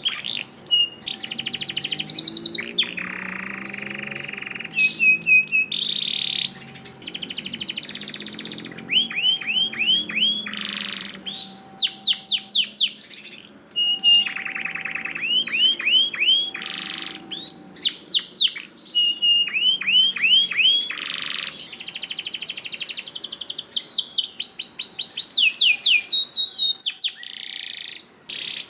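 Domestic canary singing a long, unbroken song: rapid trills alternating with runs of quickly repeated downward-sweeping notes, the phrase changing every second or two.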